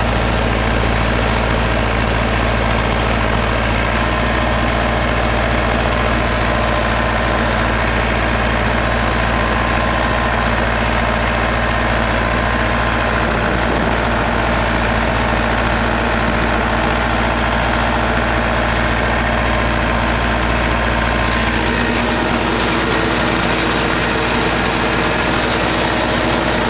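Massey Ferguson 383 tractor's diesel engine running steadily; its deep rumble eases off slightly about 22 seconds in.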